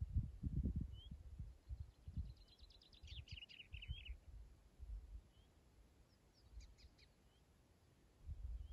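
Wind gusting against the microphone in low, uneven rumbles, strongest in the first two seconds and again near the end. Over it a small songbird gives short rising chirps every second or so, and a fast trill about three seconds in.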